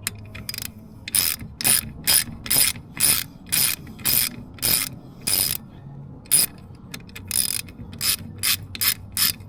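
Hand socket ratchet clicking in repeated strokes, about two a second, as bolts are backed out; there is a short pause a little past halfway.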